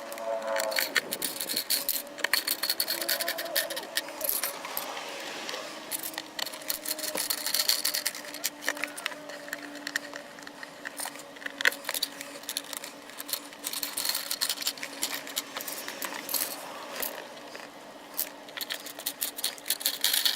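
Small plastic and metal clicks, rattles and scrapes throughout as the center console cover is fitted back over the repaired hinge and its screws are driven in.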